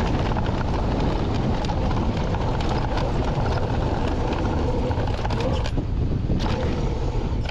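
Steady rush of wind on the microphone and tyre rumble from an Intense Tazer Pro electric mountain bike rolling along a dirt singletrack, with a few sharp knocks from the bike over bumps near the end.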